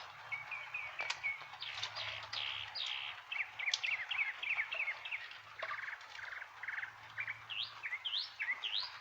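Several songbirds chirping and singing, many quick rising and falling chirps with a few buzzy trilled notes about six seconds in, over a steady hiss of rain.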